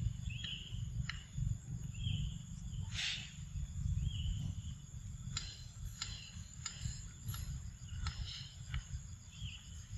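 Outdoor ambience: a steady low rumble under scattered short clicks and a few brief high chirps that rise and fall in pitch.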